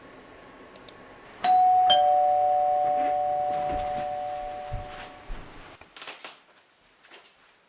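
Two-tone doorbell chime: a higher ding about a second and a half in, then a lower dong half a second later, both ringing on and fading away over about three seconds.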